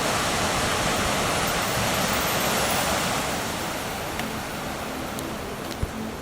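Steady rushing noise of strong tropical-storm wind and heavy rain, easing a little about halfway through, with a few faint clicks near the end.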